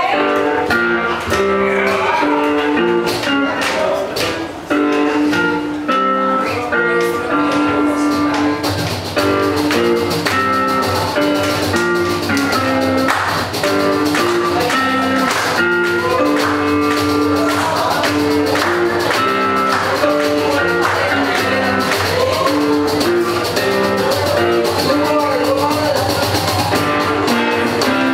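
Live band playing a song: guitar lines over bass, with drums and cymbals filling in about nine seconds in.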